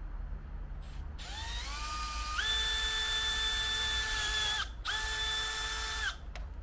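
Milwaukee power drill drilling a bolt hole: it spins up with a rising whine, runs at a steady pitch, stops briefly, then runs again for about another second before stopping.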